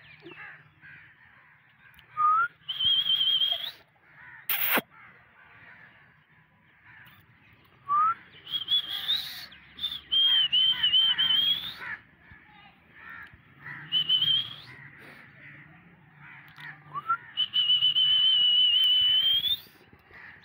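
High whistling repeated about five times: long, slightly warbling notes of one to two seconds, each ending in an upward flick, with short rising chirps before some of them. There is a single sharp crack about four and a half seconds in.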